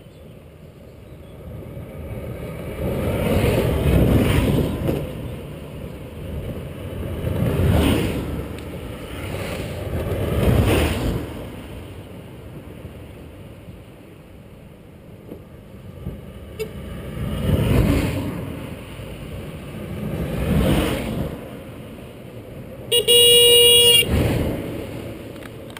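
Velomobiles, fully enclosed recumbent tricycles, rolling past fast one after another, each pass a deep rumble that swells and fades, about six passes in all. Near the end one sounds its horn, a single steady toot about a second long.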